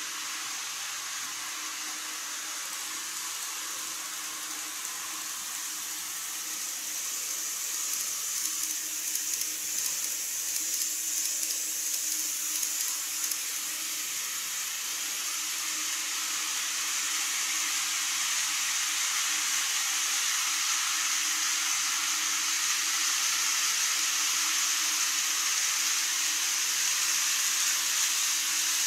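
Model train running across a model truss bridge: a steady whirring hiss with a faint hum under it, and light clicks from the wheels between about eight and thirteen seconds in, slowly growing louder toward the end.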